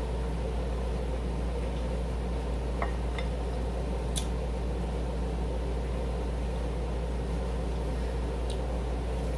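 Steady low background hum with an even hiss, broken by a few faint clicks, about four in all.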